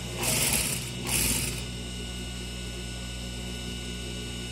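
Industrial lockstitch sewing machine stitching down a folded collar edge in two short bursts within the first second and a half, then its motor humming steadily between runs.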